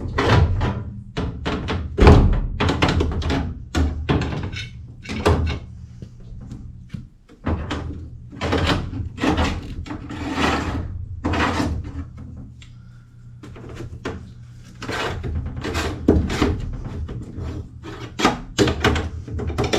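Irregular series of thunks, knocks and bangs as sheet metal is bent and the evaporator coil and its cabinet are shifted into place, over a low steady hum.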